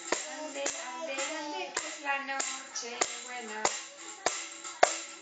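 Small hand-held tambourine slapped by a toddler's open hand, a sharp slap with a jingle at uneven intervals of about half a second to a second. A sung melody runs alongside.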